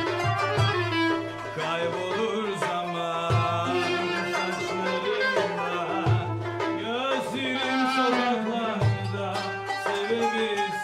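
Live Turkish folk ensemble playing: a clarinet carries a bending, ornamented melody over a kanun, with a darbuka drum keeping the beat with a strong low stroke every few seconds.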